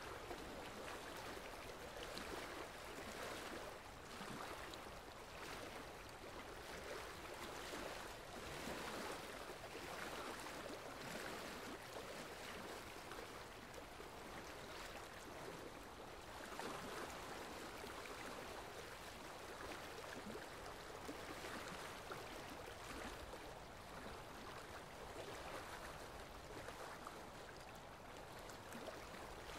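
Faint, steady wash of water, gently lapping and rippling, rising and falling softly every couple of seconds.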